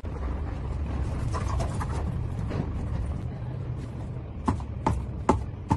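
A steady low rumble, then from about four and a half seconds in a run of sharp knocks, about two or three a second.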